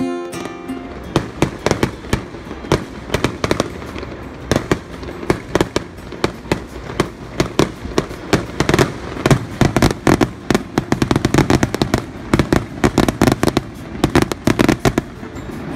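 Fireworks going off: a rapid, irregular string of sharp bangs and crackles, starting about a second in and running on with several pops a second.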